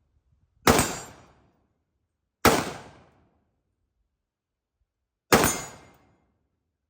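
Three single rifle shots from an AR-15, fired one at a time about two and three seconds apart. Each is a sharp crack that rings off over about half a second.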